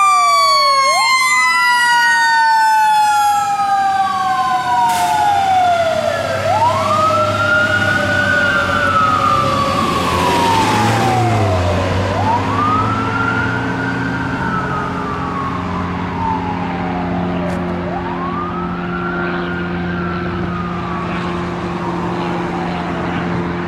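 Fire engine siren repeatedly sweeping up and down, about every six seconds, over a long slowly falling tone in the first half. A low steady truck drone sits underneath, and the whole sound fades as the engine pulls away.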